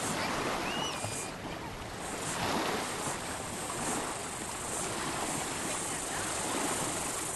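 Shallow water splashing and sloshing as a small child is pulled through it by two people wading, over a continuous wash of small waves lapping. A steady high hiss joins in from about two seconds in.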